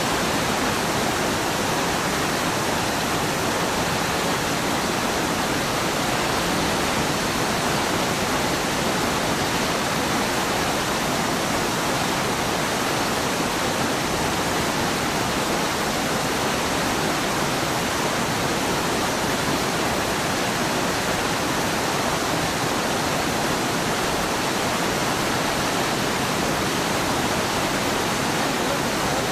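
Whitewater rushing steadily down a steep, boulder-choked creek cascade.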